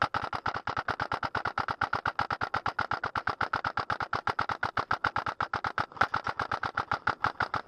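Airsoft electric gun firing a long full-auto string, a steady rattle of about ten shots a second that starts abruptly and keeps on without a break.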